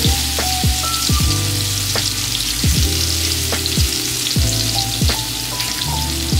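Shrimp and garlic sizzling in oil in a skillet, a steady frying hiss. Under it runs background music with a beat and a bass line.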